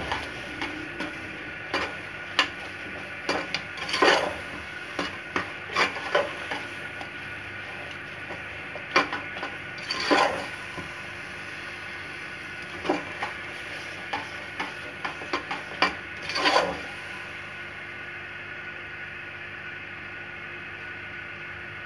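A metal spoon stirs and scrapes thick grated carrots cooking in ghee around a pressure-cooker pot, with scattered scrapes and knocks against the pot over a steady low sizzle. The scraping stops about three-quarters of the way through, leaving only the sizzle.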